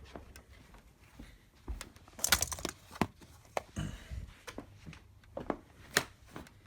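Handling sounds from a tool and its packaging: a brief crinkling rustle about two seconds in and several sharp clicks and knocks, the loudest about three and six seconds in.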